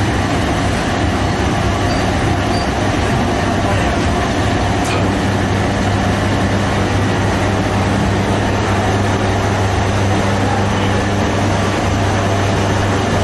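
Steady low hum and rushing noise of running bakery machinery.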